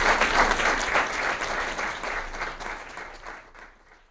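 Audience applauding: dense clapping from a roomful of people that thins and fades away over the last two seconds.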